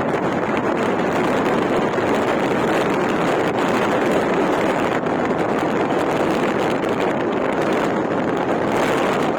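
Vehicle driving off-road over desert sand: a steady, loud rush of engine and road noise, mixed with wind buffeting the microphone.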